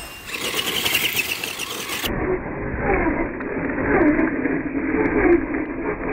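Small RC truck motor whirring and revving, its pitch sweeping up and down; about two seconds in the sound abruptly turns duller.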